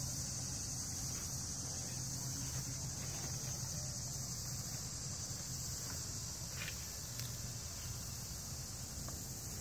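Steady, high-pitched insect chorus, with a faint low hum underneath and a couple of faint ticks about two-thirds of the way in.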